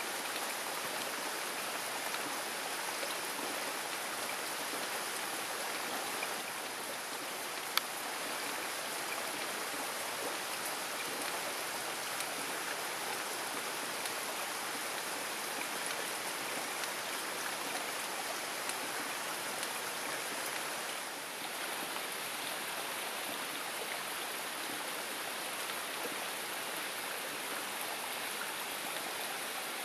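Heavy rain falling steadily on a leafy forest canopy, an even hiss of water. A single sharp click about eight seconds in.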